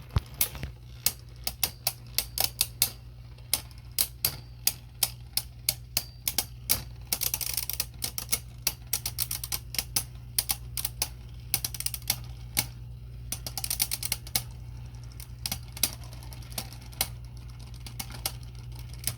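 Beyblade Burst tops spinning in a plastic stadium, clacking against each other and the stadium wall several times a second, with a couple of brief scraping hisses.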